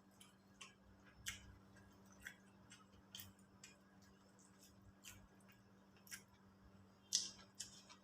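Faint, irregular mouth clicks and smacks of someone chewing food, the loudest two close together near the end, over a faint steady low hum.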